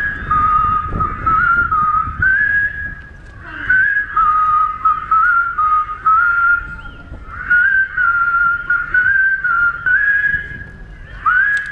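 A large crowd whistling a tune together, the melody stepping up and down in phrases with short breaks between them.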